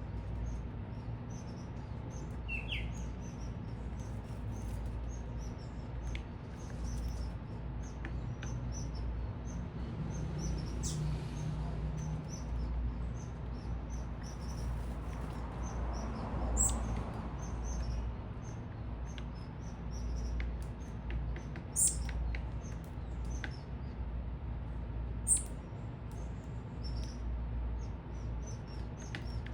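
Small birds at a feeder chirping: many short, high chirps in quick succession, with a few louder ones in the second half, over a steady low rumble.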